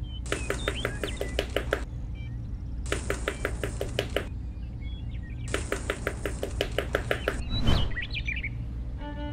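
Three short bursts of rapid clicking, about eight clicks a second, each lasting about a second and a half, over a steady low hum. A brief whoosh with a few quick chirps follows near the end.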